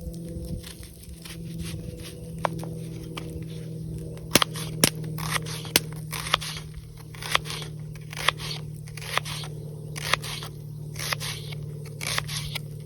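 Rhythmic scraping strokes, about one a second, with a few sharp cracks and crackles around the middle; a low steady hum runs underneath throughout.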